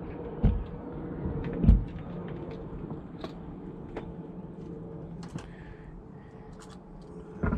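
Small clicks and knocks of hands handling wires and tools during soldering, with two low thumps in the first two seconds and another near the end, over a steady low hum.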